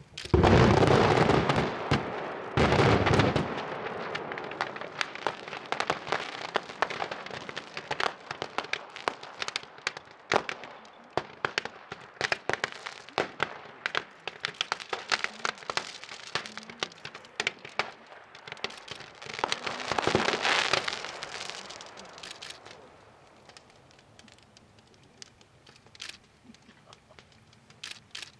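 About 20 kg of category IV fireworks going off inside a car's cargo area. It starts with a dense, loud barrage of bangs for a few seconds, then a long run of scattered sharp cracks and pops. A second dense, loud burst comes about twenty seconds in, and near the end only occasional pops are left over the fire.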